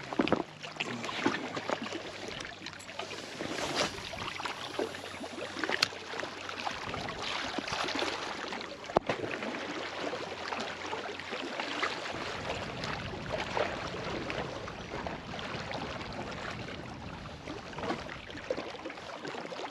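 Small waves lapping and splashing irregularly against the rocks of a breakwall.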